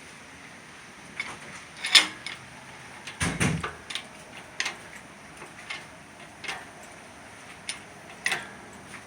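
Engine hoist being jacked up to lift a slant-six engine: a series of sharp metallic creaks and clunks, roughly one a second, the heaviest about three seconds in.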